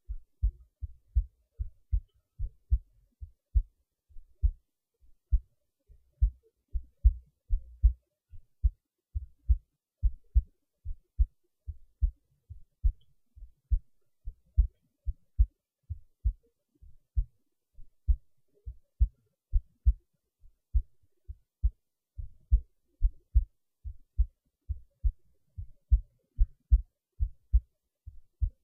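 A heartbeat: a steady rhythm of paired low thumps, the 'lub-dub' of each beat, repeating evenly.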